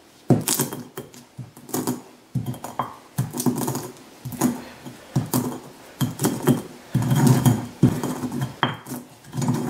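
Stone pestle crushing whole spices (a piece of cinnamon stick, cloves and black peppercorns) in a stone molcajete: irregular sharp knocks of stone on stone, about two a second, with crunching and scraping between them as the spices are ground toward a powder.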